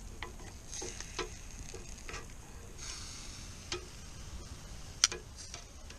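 Meat grilling over a charcoal fire mixed with bits of wood: a faint sizzle with a few scattered sharp crackles, the loudest about five seconds in.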